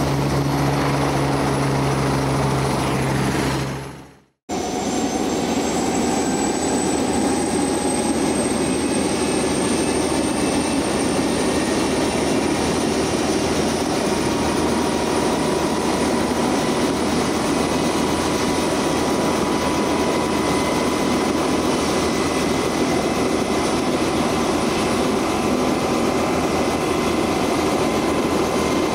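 Aircraft turbine engines running loud and steady, with a high whine that rises slowly in pitch. Before that, a shorter, lower engine hum fades out and cuts off about four seconds in.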